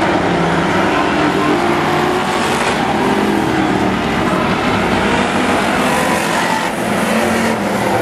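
A pack of demo race cars running hard round an oval track: many engines at once, their pitches shifting as cars rev and pass.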